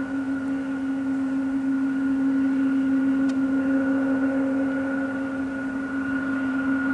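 Boeing 777-200's twin jet engines whining steadily at low taxi power as the airliner rolls slowly along the runway.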